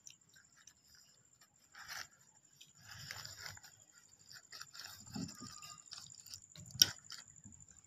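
Paper food wrappers rustling and crinkling as hands handle wrapped burgers, with a sharp knock a little before the end.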